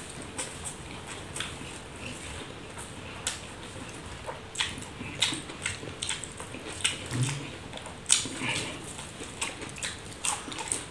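Close-up eating sounds: a man chewing and smacking on mouthfuls of rice, with fingers mixing rice on a banana leaf. The sound is a run of small, irregular wet clicks and smacks.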